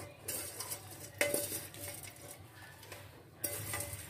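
Wooden spatula scraping dry-roasted whole spices (star anise, cinnamon bark, coriander seeds) across a metal pan, the spices rattling as they slide out. There are a few strokes, with a sharp knock about a second in.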